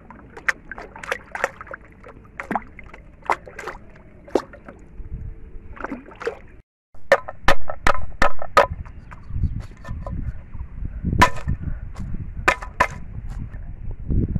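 Light splashing of water around a bobbing plastic-bottle float, then repeated sharp cracks of a brick smashing freshwater snail shells on a clay roof tile.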